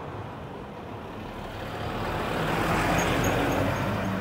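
A box truck drives past close by. Its engine hum is steady at first, then engine and tyre noise swell from about two seconds in and are loudest near the end as it passes.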